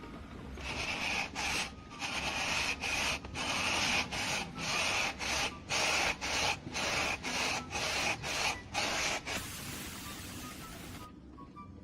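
Rhythmic rubbing or scraping strokes, about two a second, like a hand sanding or scraping a surface. They are followed near the end by a steady hiss of about a second and a half that cuts off suddenly.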